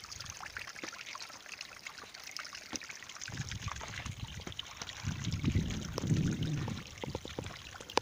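Thin trickle of water spilling and dripping over the rocks of a small waterfall with little water in it: a steady splashy patter of fine drops. Low rumbling on the microphone comes in about three seconds in and is loudest between five and seven seconds.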